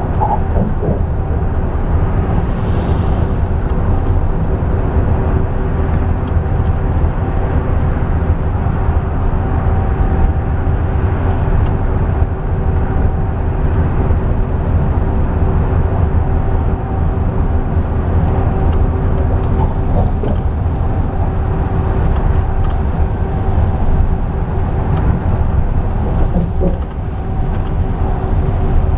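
Steady rumble of a moving bus, heard from inside its cabin: engine and road noise at highway speed with a steady hum held over it.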